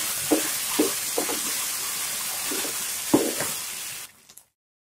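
Beef, onions and capsicum sizzling in a frying pan while a wooden spatula stirs in cornflour slurry, with several soft knocks of the spatula against the pan. The sound cuts off abruptly about four seconds in.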